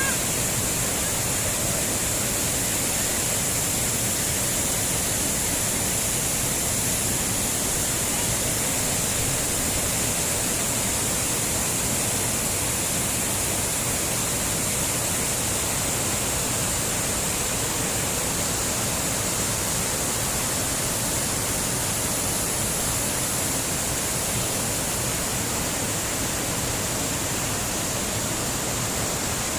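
Waterfall rushing steadily, a constant roar of falling water.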